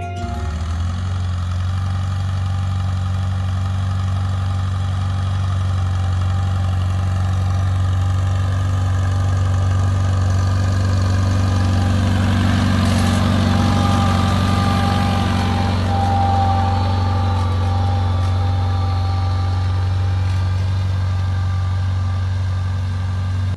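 1950 Farmall Cub tractor's four-cylinder engine running steadily under light load as it pulls plow shanks through tilled soil, making up rows.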